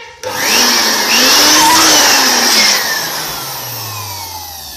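Handheld electric dust blower switched on, its motor spinning up with a loud rush of air as it inflates a balloon on its nozzle, then switched off after about two and a half seconds and winding down with a falling whine.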